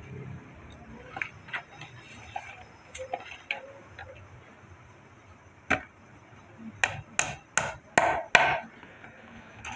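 Light knocks of wooden boards being shifted and set down on a sawdust-covered floor, then a sharper knock followed by about five quick brushing strokes of a hand sweeping across a board's surface near the end.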